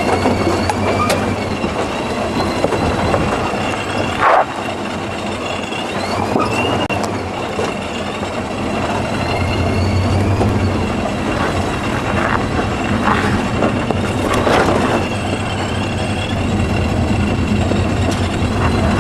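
Off-road 4x4 crawling down a rocky slope: the engine running low with tyres grinding over rock, a high thin squeal that rises and falls at times, and a sharp knock about four seconds in.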